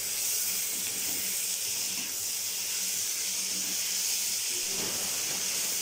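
Chopped tomato and vegetables sizzling in hot oil in a kadai as they are stirred with a slotted spoon: a steady, high hiss.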